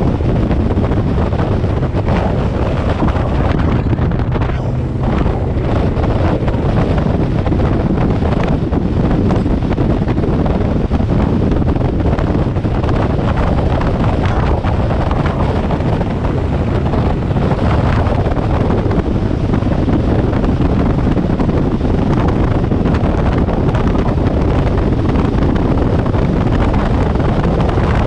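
Heavy wind buffeting the microphone over the low drone of a bass boat's Evinrude E-TEC 250 two-stroke V6 outboard and the hull running on the water at high speed, as the boat accelerates from about 38 to 59 mph.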